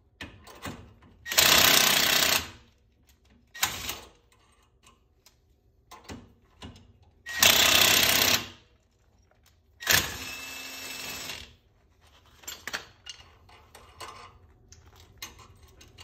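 Cordless impact wrench hammering on a wheel-stud nut at the bare front hub, in three longer runs and one short burst, the last run quieter. Light metallic clicks and clinks follow as the parts are handled.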